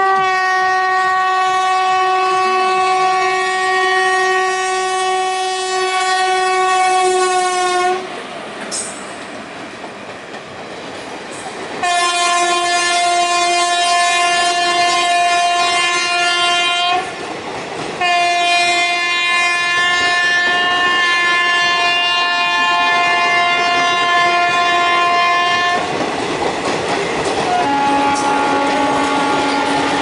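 Indian Railways WAP-4 electric locomotive's horn sounding three long blasts: one of about eight seconds, then, after a few seconds of train rumble, one of about five seconds and another of about eight seconds. Toward the end the horn stops and the coaches rush past, wheels clattering over the rail joints, with a fainter, lower horn tone sounding over them.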